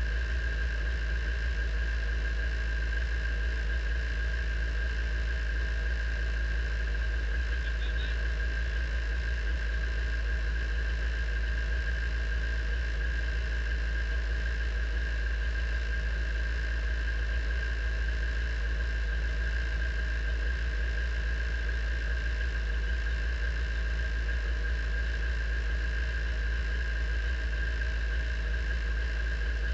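Radical race car engine idling steadily in neutral, a deep hum with a steady high-pitched whine over it.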